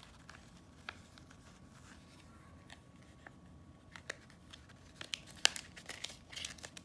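Paper template being folded and handled with the hands: light crinkling and rustling with scattered small clicks, busier near the end.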